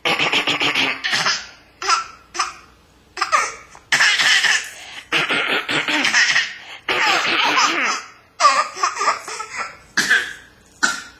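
A baby laughing in a string of bouts, some long and some short, with brief pauses between them.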